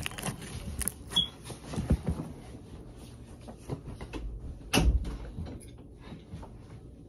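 Scattered knocks, clicks and rustling of someone moving about a room and handling things, with one louder thump about five seconds in.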